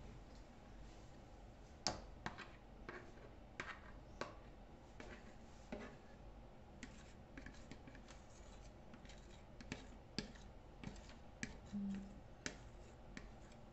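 A metal fork scraping and tapping against the inside of a plastic mixing bowl while thick batter is scraped out: faint, irregular clicks and short scrapes.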